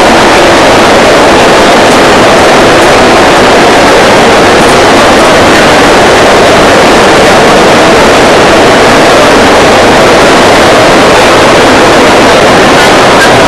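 Steady crowd hubbub in a packed hall, many voices blurring into one dense wash of noise. It is recorded so loud that it is overloaded and distorted.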